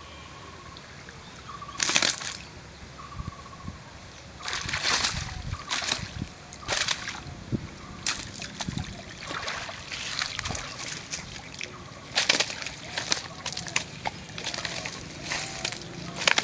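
Shallow pond water sloshing and splashing in irregular bursts as a cast net full of fish is gathered up and hauled out of the water. One sharp splash comes about two seconds in, and the splashing becomes frequent from about halfway through.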